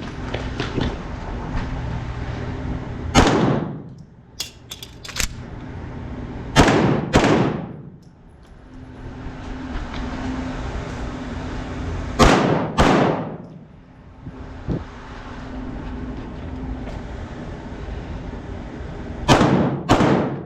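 Pistol shots during a timed IDPA stage: seven in all, a single shot about three seconds in, then three pairs fired about half a second apart, with a few faint clicks and steady rustling movement noise between them.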